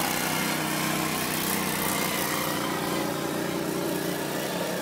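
Racing lawn mower engines running steadily on an ice track.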